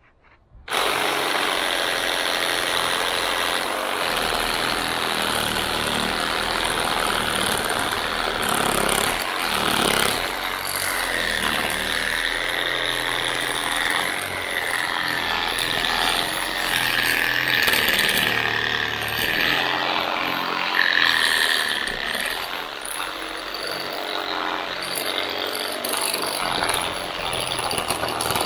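Parkside PSSA 20-Li A1 cordless reciprocating saw starting up about a second in and cutting steadily through a tree branch, with the blade rasping through the wood and a high whine that wavers in pitch in the middle of the cut. It keeps running without losing power under the pressure of the cut.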